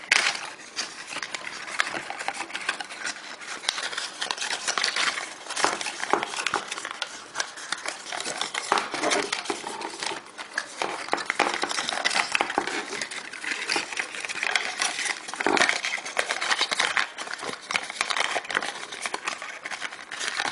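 Earphone packaging being handled as the earphones are worked out of their box: a continuous run of crinkling, rubbing and small clicks.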